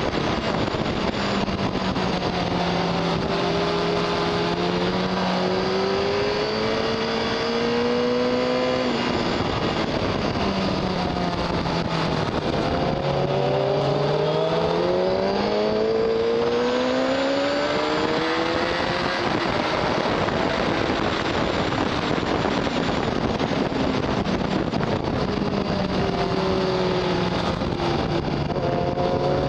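Onboard sound of a 2006 Honda CBR1000RR Fireblade's inline-four engine at track speed, the note climbing in long sweeps as it accelerates through the gears and dropping as it slows for corners, under heavy wind rush.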